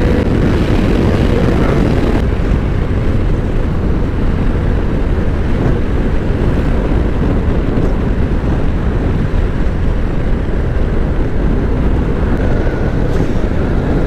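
Honda NC 750X motorcycle riding at road speed: a steady rush of wind over the microphone, with the bike's running noise beneath it.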